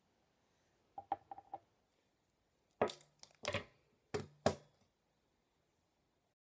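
A NuMe Silhouette flat iron being handled: a quick run of four small clicks about a second in, then several louder knocks between about three and four and a half seconds as it is set down on the table.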